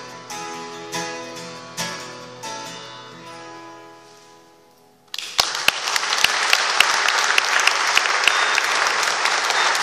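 Acoustic guitar strummed a few more times, with the last chord left ringing and fading away. About five seconds in, audience applause breaks out suddenly and carries on, with sharp single claps standing out.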